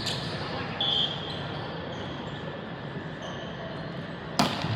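Gym ambience with a brief high squeak about a second in, then one sharp ball impact near the end.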